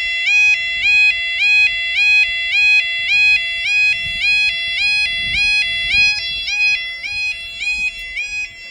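UK level crossing alarm sounder giving its electronic two-tone warble, which flips between a lower and a higher pitch about three times a second. It warns that the crossing is closing for a train. It gets somewhat quieter near the end.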